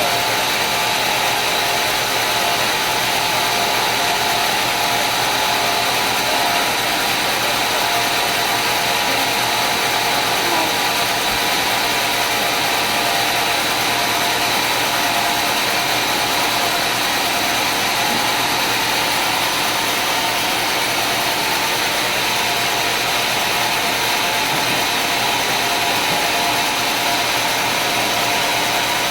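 Sawmill machinery running steadily: a constant mechanical whine over a rushing noise.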